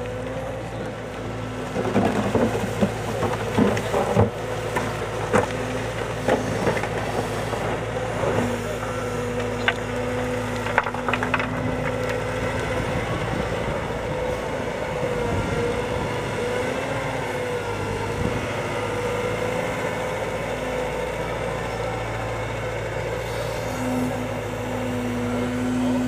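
CAT M313D wheeled excavator's diesel engine running steadily, with a run of sharp knocks and scrapes from about two seconds in until about halfway through.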